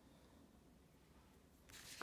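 Near silence, then paper rustling starts near the end as a worksheet packet page is lifted and turned.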